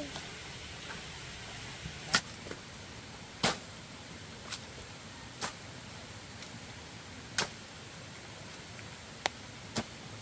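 A series of separate sharp knocks or clicks, about seven, at uneven intervals a second or so apart, over a steady faint hiss.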